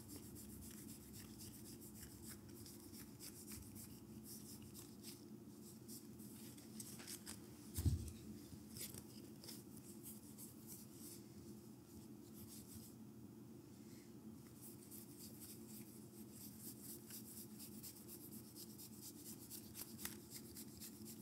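Faint rubbing and light clicking of a deck of trading cards being shuffled and handled, with one soft thump about eight seconds in.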